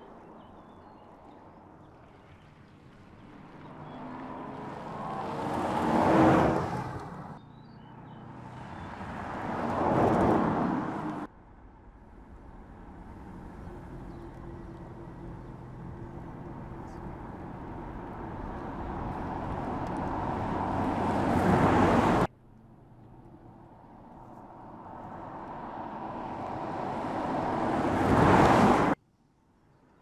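Electric Mercedes-AMG EQE 53 sedan driving past four times. Each pass is an even rush of noise without an engine note that grows louder as the car nears. The first fades away after its peak; the other three cut off suddenly.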